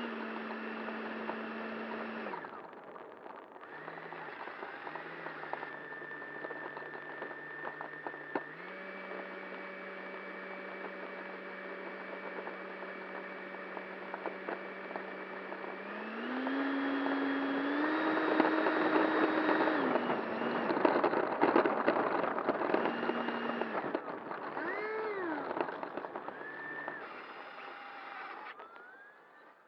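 90mm electric ducted fan with an inrunner motor in a Freewing F-15 model jet, heard from a camera inside the fuselage. Its steady whine holds at set pitches and steps up and down with the throttle over a rushing of air, running highest for a few seconds about midway. Near the end comes one quick blip up and down, and then it winds down and stops.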